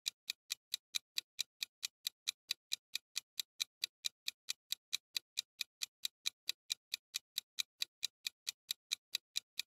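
Clock-ticking sound effect for a countdown timer: crisp, even ticks, between four and five a second, starting abruptly.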